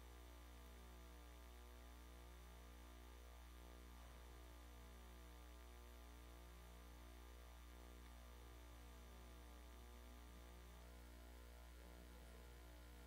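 Near silence with a steady low electrical hum, mains hum on the recording.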